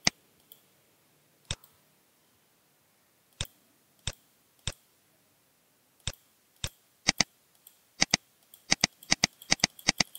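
Computer mouse button clicks: single sharp clicks spaced a second or two apart at first, then quickening into a rapid run of several clicks a second over the last two seconds.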